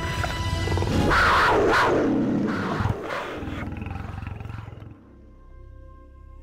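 A big-cat roar over film score music, starting about a second in and falling in pitch over a couple of seconds. The music drops much quieter about five seconds in.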